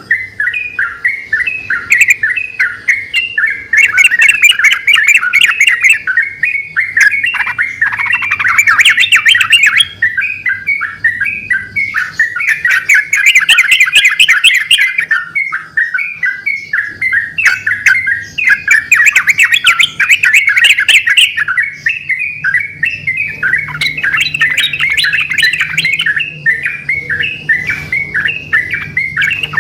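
Yellow-vented bulbuls (trucukan) singing vigorously, long runs of quick chirpy notes with several birds answering one another.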